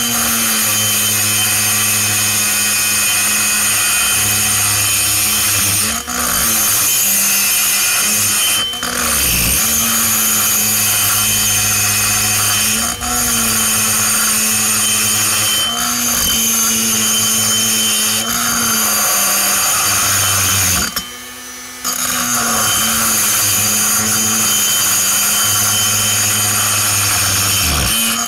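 Hand-held rotary pencil grinder running at high speed, its bit cutting inside a port of a two-stroke chainsaw cylinder. The steady whine sags briefly every few seconds as the bit bites, and it stops for under a second about three-quarters of the way through before starting again.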